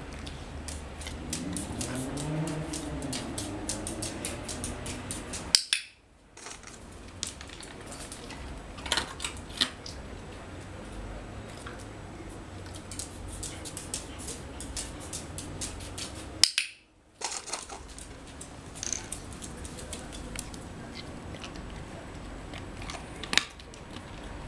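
A dog's claws clicking and tapping on a tiled floor as it moves about, with a few louder sharp knocks.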